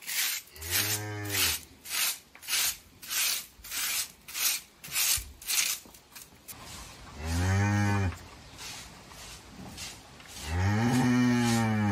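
A cow mooing three times, long low moos, the second and third louder than the first. Between and under the moos a broom sweeps a floor in quick short strokes, about two and a half a second, most steadily in the first half.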